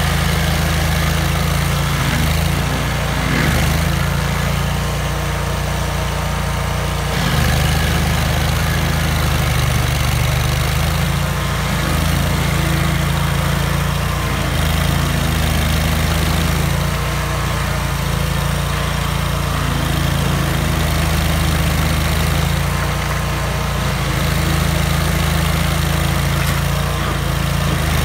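Vermeer stump grinder's engine running steadily under load as its cutter wheel grinds into a stump, the engine note shifting slightly now and then.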